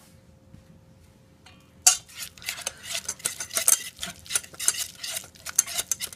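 A utensil stirring in a bowl, scraping and clinking against its sides in a quick, uneven run of clicks that starts about two seconds in. It is mixing salt into a tuna mixture.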